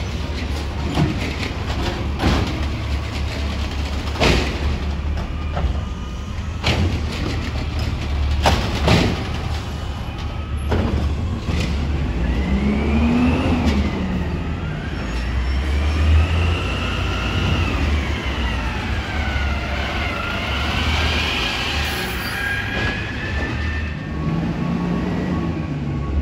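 2011 Autocar garbage truck with an Amrep automated side-loader body working a route: steady diesel engine rumble, several sharp bangs in the first ten seconds, then whines rising and falling in pitch through the second half as the hydraulics work.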